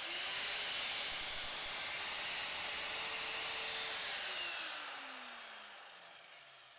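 Evolution R185SMS 185 mm sliding mitre saw starting up and running as its blade is lowered onto a floorboard for a shallow, depth-stopped cut. About four seconds in, the motor is let go and winds down, its pitch falling steadily to the end.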